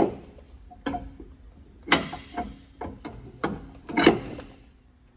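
Steel drive flange being worked onto the splined end of a Land Rover Series III rear half shaft and over the hub studs: about seven separate metal-on-metal clinks and knocks, each with a short ring, the sharpest near the start, about two seconds in and about four seconds in.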